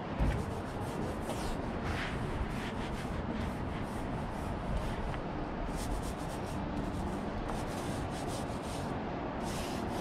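A small paint roller rolled back and forth over a car's sheet-metal hood, a soft rubbing swish with each stroke, repeated many times.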